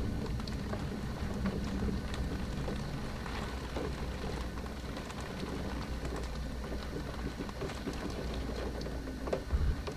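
Heavy thunderstorm rain falling and pattering on a window pane. A low rumble of thunder dies away over the first few seconds, and there is one brief low thump near the end.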